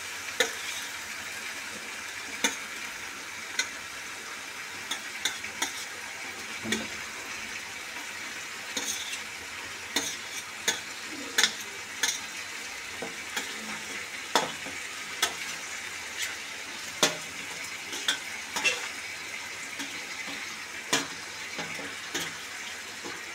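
Onions frying in oil in a kadai with a steady sizzle, while a metal spatula repeatedly clinks and scrapes against a steel plate and the pan as raw chicken pieces are pushed in.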